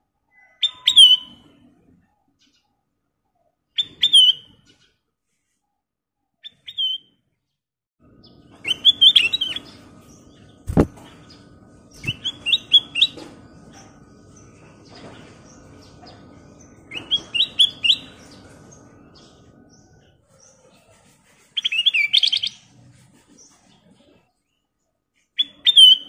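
Ruby-throated bulbul (kutilang emas) singing short, bright song phrases, about eight of them, a few seconds apart. Two sharp knocks come near the middle.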